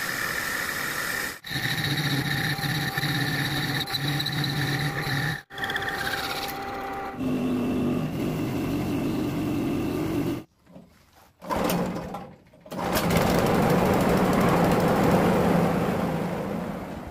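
Machine sounds cut together one after another. First a metal lathe runs with a steady hum as it turns a steel shaft. After a few abrupt cuts, a rice threshing machine runs with a steady, noisy drone that fades out near the end.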